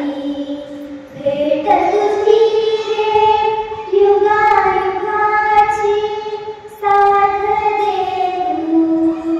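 A young girl singing solo in long held notes with sliding, ornamented turns, pausing for breath about a second in and again near seven seconds.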